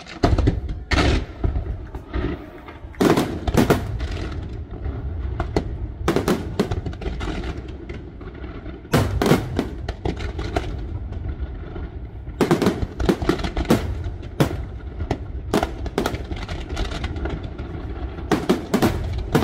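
Fireworks display: a rapid barrage of loud bangs and reports in dense clusters over a continuous low rumble, starting suddenly just after a hush.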